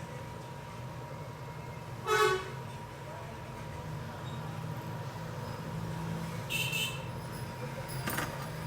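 A short, loud, horn-like toot about two seconds in, and a shorter, higher-pitched tone near the end, over a steady low hum.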